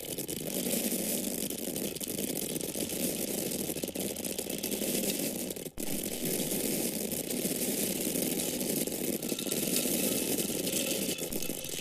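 Dry corn grains falling in a steady, dense stream, with a momentary break about halfway through.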